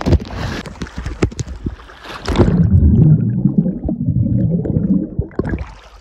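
Water sloshing and gurgling right against the microphone, with scattered knocks and clicks, swelling into a loud churning rumble from about two seconds in to near the end.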